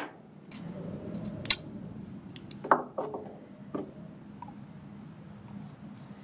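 Small knife whittling a wooden stick, with a few sharp clicks; one, about two and a half seconds in, has a short metallic ring as the knife is set down on the wooden bench. A steady low hum runs underneath.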